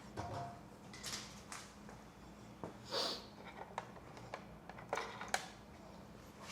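Scattered light clicks, taps and rustles of small parts and tools being handled during motorcycle wiring work, with a louder short rustle about three seconds in and a sharp click a little after five seconds.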